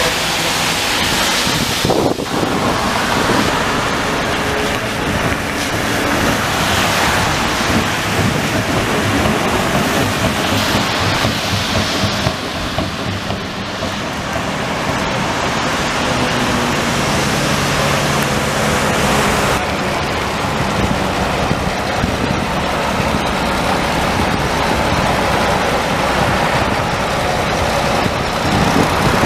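Historic buses and a tram passing on a rain-soaked street: a steady hiss of tyres on the wet road, with engine sound, and wind noise on the microphone.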